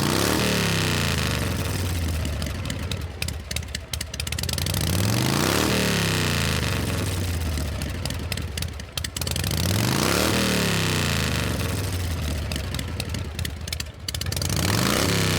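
Motor engine revving up and dropping back again, four times at intervals of about five seconds. Between the revs it runs rough and uneven.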